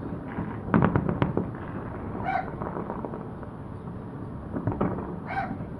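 New Year fireworks bursting: a quick cluster of bangs about a second in and a few more pops near the end, over a steady din, with two brief high calls rising above it.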